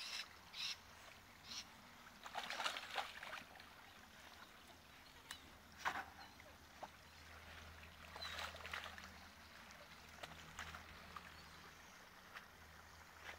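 Faint, intermittent sloshing and splashing of a dog swimming in a creek, in short noisy bursts, over a low steady background rumble.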